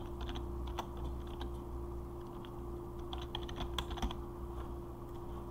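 Typing on a computer keyboard: scattered key clicks near the start and a quicker run about three to four seconds in, over a steady low hum.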